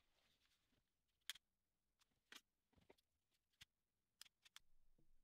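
Faint, scattered clicks and ticks from small wires and a red plastic plug housing being handled, about six in a few seconds, the loudest a little over a second in.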